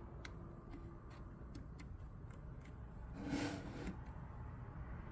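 Anker 6-in-1 140W charging station giving off a constant high-pitched electronic whine with static, which the owner suspects marks a defective unit. A few faint clicks and a brief rustle about three seconds in.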